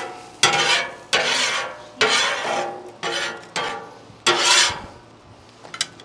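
A metal spatula scraping across a flat-top griddle in about seven quick strokes. Each stroke starts sharply and fades in about half a second, and the strokes stop about a second before the end.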